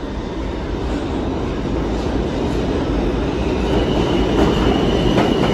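Subway train pulling into an underground station, its rumble growing louder as it comes closer, with a high steady whine joining in about two-thirds of the way through.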